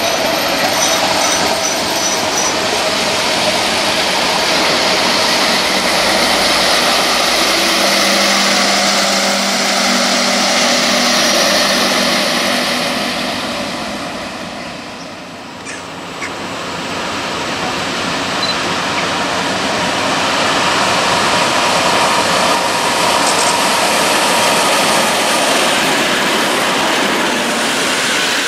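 A diesel multiple unit runs close by with its engine and wheel noise loud, then dies away. After a short lull, a locomotive-hauled passenger train rolls into the station with rising wheel and rail noise.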